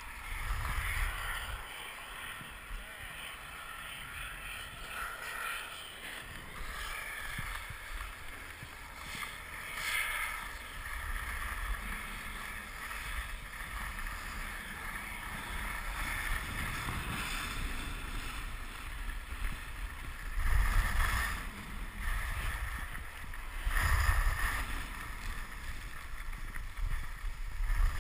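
Skis sliding and scraping over groomed snow, with wind rumbling on the microphone. The scraping swells into louder swishes a few times, the loudest about three-quarters of the way through.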